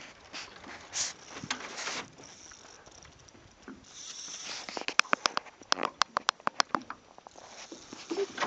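A few soft splashy noises, then a fly reel's ratchet clicking rapidly for about two seconds, roughly six clicks a second, as line is wound in on a big hooked fish.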